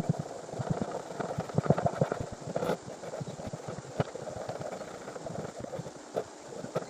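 Irregular taps, clicks and knocks over a rough scraping noise, the clatter of hand-tool work on the subwoofer's parts.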